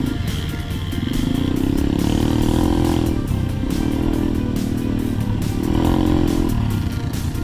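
Dirt bike engine heard from the rider's helmet, accelerating and easing off three times, with wind noise over the microphone.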